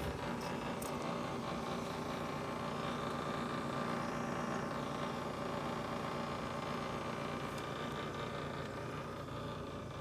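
GE refrigerator running with a steady hum that carries several held tones, with a couple of faint clicks near the start.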